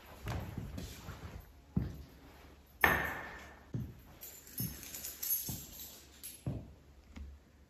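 Footsteps on a stone floor, a steady walking pace of short knocks, with one sharper, brighter knock about three seconds in.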